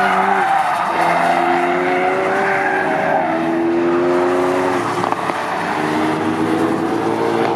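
Ford Focus RS's 2.3-litre turbocharged four-cylinder engine driven hard on track, seen from trackside. The engine note holds high, drops and climbs again a few times as the driver shifts and lifts through the corners.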